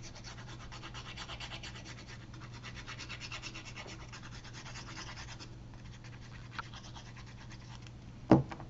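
Glue bottle's applicator tip rubbed quickly back and forth over a strip of card, a fast scratchy rasp that stops about five and a half seconds in, followed by fainter rubbing. One loud thump near the end.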